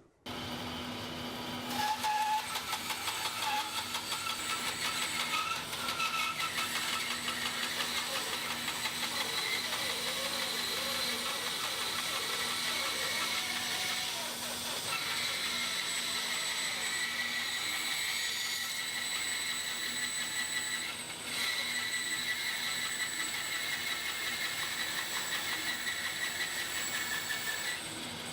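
Bandsaw running with a 5/16-inch, 4 TPI skip-tooth back-tooth blade cutting a curve through thick timber: a steady hiss of the blade in the wood over the motor's hum and a high whine. It gets louder about two seconds in, with a couple of brief dips later.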